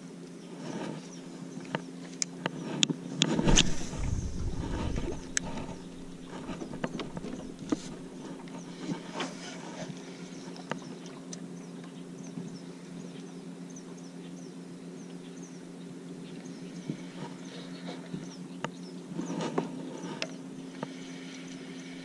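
Electric trolling motor humming steadily, under light clicks and knocks of a spinning rod and reel being cast and cranked. A louder, low handling rumble comes about three to five seconds in.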